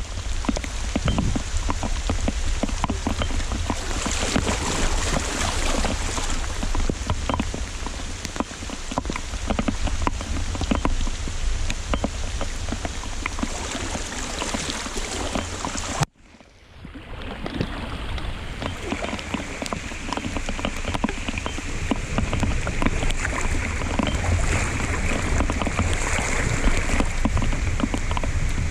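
Heavy rain falling steadily, a dense hiss of many small drop hits over a low rumble. About halfway through it cuts out suddenly and fades back up over a second or two.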